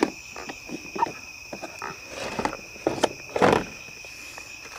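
Steady night chorus of insects, a continuous high trill, with scattered clicks and a louder brief scuffling noise about three and a half seconds in as a caught catfish is handled on a wooden dock.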